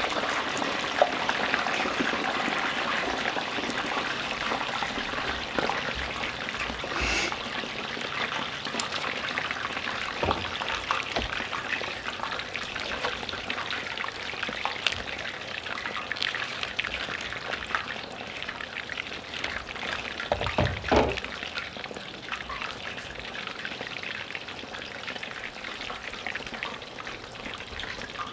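Chicken wings deep-frying in hot oil in cast iron Dutch ovens: a steady crackling sizzle that slowly eases off, with a thump about two-thirds of the way through.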